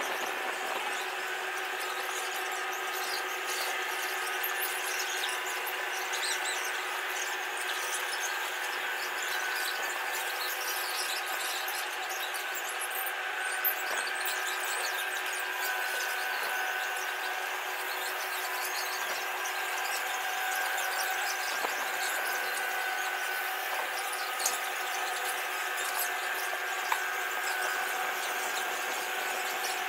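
Motor drive of a slowly rotating viewing platform, squealing and rubbing steadily as it turns, with a few faint clicks.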